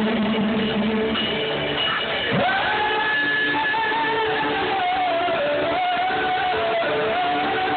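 Live band music with electric guitar. About two seconds in, a long held high note swoops up and then wavers slowly in pitch.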